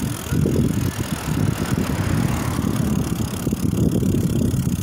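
Rumble and jolting rattle of a KhVZ Sputnik bicycle rolling along an asphalt street, mixed with wind buffeting the microphone.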